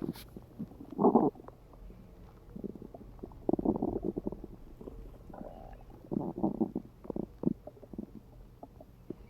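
Human stomach and gut gurgling and bubbling in several short bursts, the loudest about a second in: hungry, gassy growls, picked up by a phone pressed against the belly.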